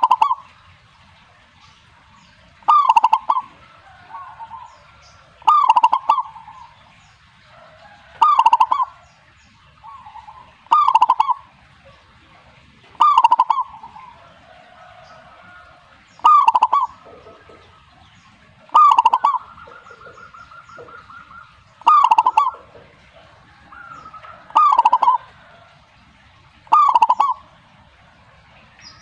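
Zebra doves (perkutut) cooing: one bird repeats a loud, short cooing phrase about every two and a half to three seconds, eleven times, while a fainter dove calls back in the gaps between.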